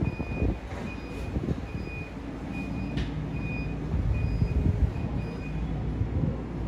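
Subway train rumbling, growing louder about four seconds in. Over it, a short high electronic beep repeats roughly twice a second, like a reversing alarm. There is a single sharp click about three seconds in.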